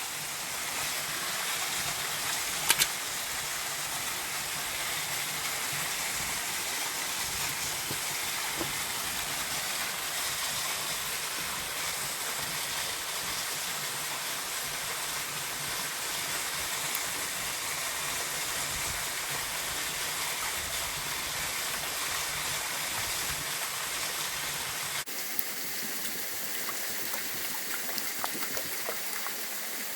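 Waterfall rushing steadily, an even wash of water noise. A sharp click sounds about three seconds in, and about 25 seconds in the sound cuts to a thinner rush with a few faint ticks.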